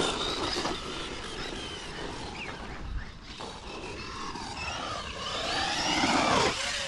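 The electric motor and drivetrain of a 1/12-scale 4WD RC monster truck whining as it is driven over a big jump, the pitch rising and falling with the throttle, with a sharp downward sweep near the end.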